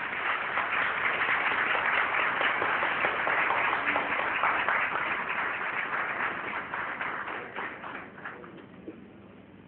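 Audience applauding, rising quickly at the start and thinning to scattered claps as it dies away near the end.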